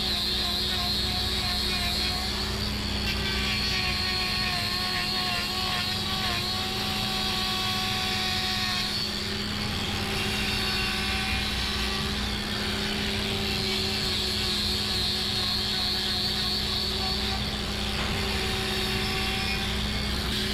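Handheld angle grinder fitted with a hoof-trimming wheel running steadily on cow hoof horn, a constant motor whine that wavers in pitch for several seconds as it grinds.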